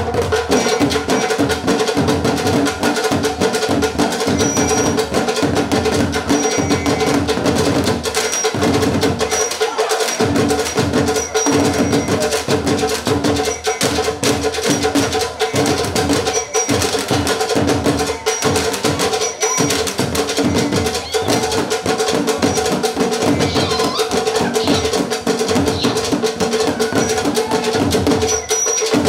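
An ensemble of tall wooden standing drums struck with sticks, playing a fast, driving rhythm that goes on without a break. A steady tone is held beneath the drumming.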